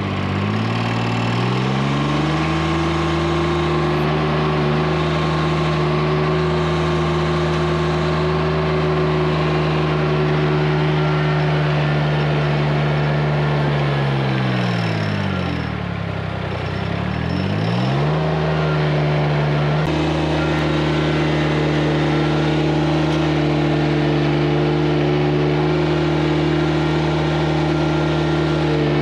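Engine of the bush-hogging rig running at high revs while it works through brush, revving up to a steady high speed, dropping to low revs about fifteen seconds in, then revving back up and holding steady.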